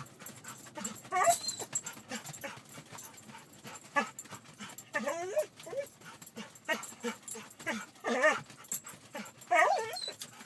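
A dog whining, about four short wavering whines with rustling between them, typical of a dog reluctant to get off the bed for a bath.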